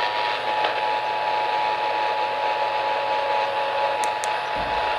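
Steady hiss of radio static, with a few faint clicks and a short low thump near the end.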